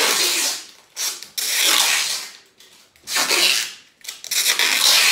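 Packing tape being pulled off the roll and wrapped around a bundle of plastic water bottles, in about five long rasping pulls with short pauses between them.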